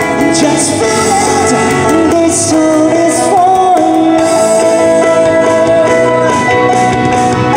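Live band performance: a man sings lead into a microphone over keyboards and drums, holding one long note around the middle.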